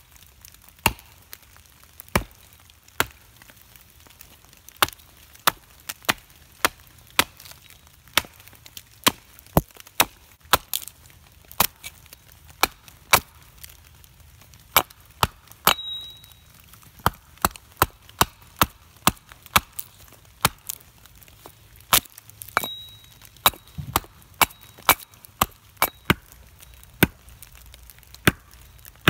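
A carving axe hewing a split green-wood spoon blank against a chopping stump: a long irregular run of sharp wooden chops, about one to two a second.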